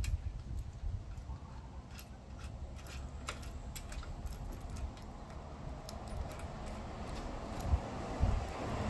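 Light metallic clicks and clinks of small espresso-machine valve parts being handled and fitted, over a low rumble that grows louder near the end.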